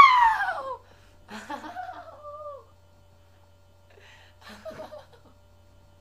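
A person's high-pitched voice: a loud cry that falls steeply in pitch right at the start, then a few shorter, quieter vocal sounds with wavering pitch.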